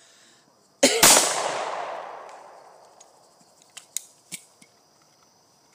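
Two quick shots from a Ruger P95 9mm pistol about a second in, the second ringing out and fading over about two seconds. A few light clicks of the pistol being handled follow.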